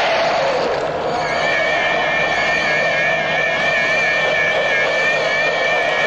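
Science-fiction TV sound effect: a steady rushing hiss with a low hum, joined about a second in by two high electronic tones, one steady and one warbling.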